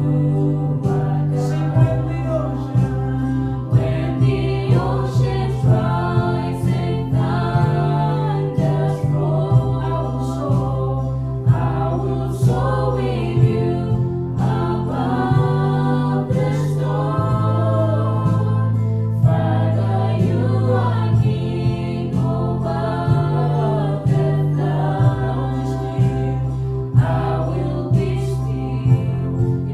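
Gospel worship song: a group of voices singing together over a band, with held bass notes and a regular drum beat.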